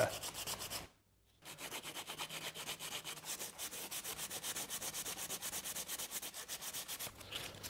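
120 grit sandpaper rubbed by hand over cured epoxy clear coat on a carbon fibre skin, in quick even strokes of about five a second, with a short break about a second in. This is denibbing and keying the first clear coat: knocking down high spots and stray fibres so the next coat bonds.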